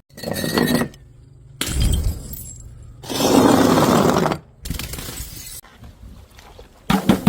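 Glass bottles shattering, several breaks one after another with abrupt cuts between them, followed near the end by a quick run of sharp clinks.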